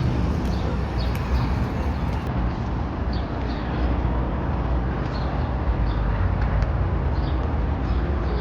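A steady low rumble of road traffic or a vehicle, with small birds chirping in short high notes several times over it.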